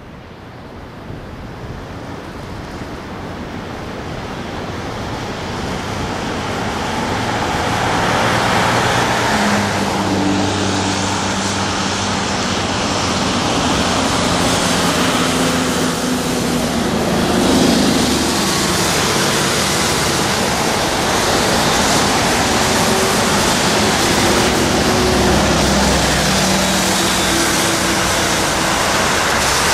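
Road traffic: a steady roar of passing vehicles that fades in over the first few seconds. Low engine hum joins from about ten seconds in.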